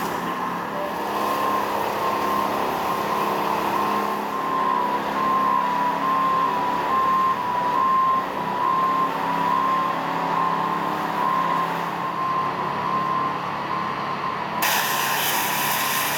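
Pressure washer running steadily: a motor drone with a high whine, and the spray hissing against the stone. The hiss grows brighter and louder near the end.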